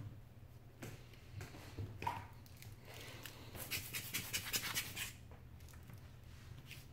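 Rubber bulb air blower squeezed rapidly, a quick run of short air puffs lasting about a second and a half, blowing dust off a tablet's bare LCD panel before a new touch screen goes on.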